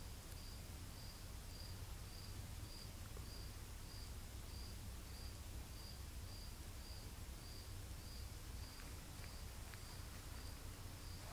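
An insect chirping steadily in the garden, a high, even chirp repeated about three times a second, over a faint low rumble.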